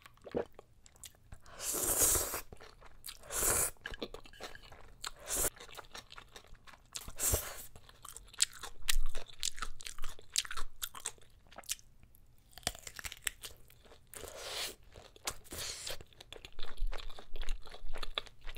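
Close-miked eating: bites into a kielbasa sausage and chewing, heard as a string of separate crunchy, wet bursts with short pauses between them.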